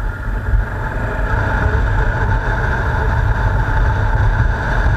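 Motorcycle engine running steadily while riding at town speed, mixed with a heavy wind rumble on the bike-mounted camera's microphone.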